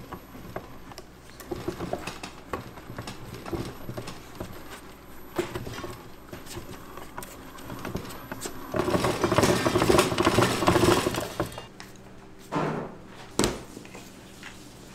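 Food-preparation handling sounds: a run of light taps and clicks, then about three seconds of a louder dense rustle, and two short knocks near the end.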